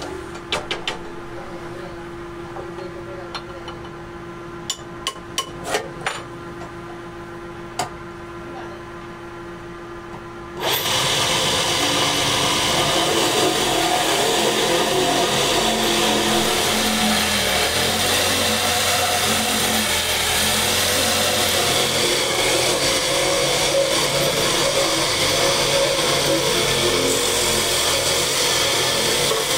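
Belt-driven wood lathe running with a steady hum and a few light knocks as a snooker cue shaft spins. About ten seconds in, a much louder steady rasping noise sets in suddenly as the spinning wooden shaft is sanded by hand.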